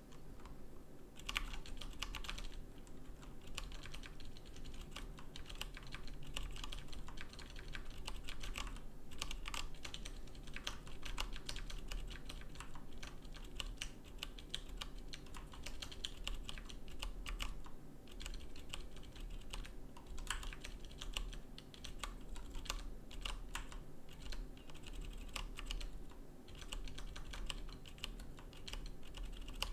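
Fast, continuous typing on a split mechanical computer keyboard: rapid key clicks with short pauses, as numbers are typed in a typing test.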